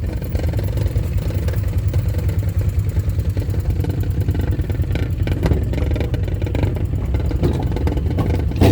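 An engine running steadily with an even low rumble, with light clatter in the middle and a single sharp knock near the end.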